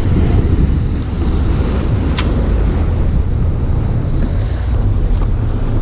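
Heavy wind rumble on the microphone and water rushing and slapping along the hull of a small open boat under way through choppy water.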